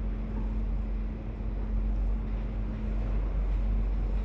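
Steady low rumble of boat engines with a constant hum, and wind on the microphone.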